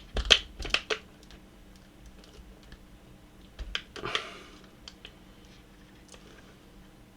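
Clicks and knocks of hands working the plastic body and blade of a TEFAL coffee grinder, a quick cluster in the first second, then a short scraping rattle about four seconds in and a few light ticks.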